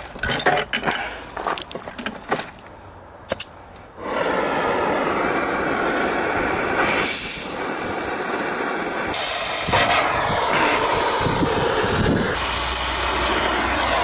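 Clinks and handling noises, then, about four seconds in, a brazing torch starts running with a loud, steady hiss that lasts to the end.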